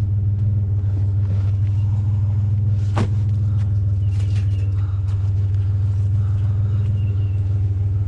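Truck engine running steadily with a low, even hum, and a single sharp click about three seconds in.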